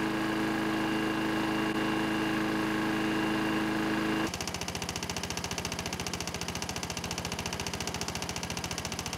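Toro push mower's single-cylinder engine running at a fixed throttle with diesel in place of oil in its crankcase, a little slower than on 10W-30. It runs steady at first, then about four seconds in the sound changes abruptly to a fast, even train of firing pulses.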